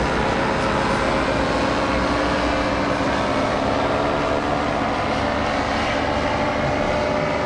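Motor paraglider's (paramotor's) engine and propeller running steadily, holding one pitch.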